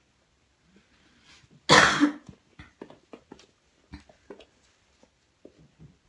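One loud cough close to the phone's microphone, lasting about half a second, followed by a scatter of faint light taps and clicks.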